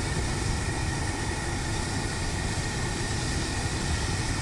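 Outdoor propane burner running steadily under a stockpot of maple sap at a rolling boil, a continuous low rushing noise.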